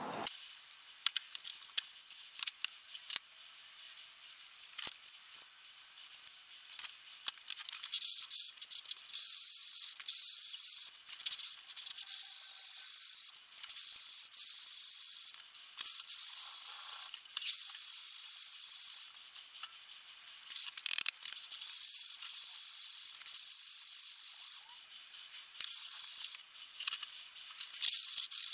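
Steel plane iron from a Stanley Bailey No. 5 being scrubbed back and forth on abrasive paper: a continuous scratchy hiss with frequent sharp clicks as the blade is pushed and lifted.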